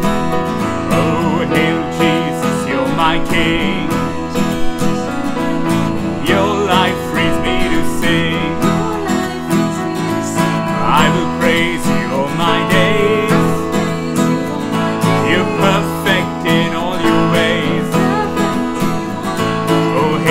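Acoustic guitar strummed together with an electronic keyboard playing a slow worship song, with a woman and a man singing over it.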